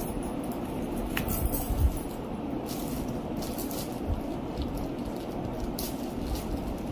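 Handling noise from unpacking a small tripod: a couple of light clicks and knocks from the plastic phone-mount piece, then a clear plastic bag crinkling and rustling as the tripod is handled inside it.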